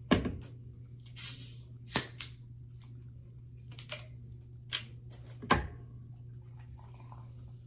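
Sharp clicks and short crackles of a plastic soda bottle being handled, its cap worked open, and the soda poured into a glass of ice. The loudest clicks come at the very start and about five and a half seconds in, over a steady low hum.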